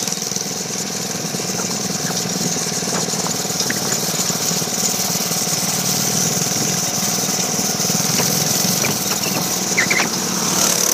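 Small minibike engine running steadily at speed, a continuous drone with a high hiss over it.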